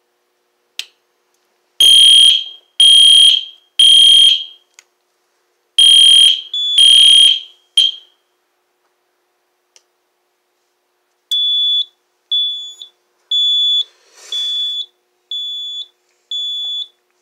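Edwards Genesis fire alarm horn strobe sounding a high-pitched temporal-three evacuation pattern: three loud blasts, a pause, then three more, the last cut short. After a few seconds' silence, six shorter, slightly quieter beeps come about once a second.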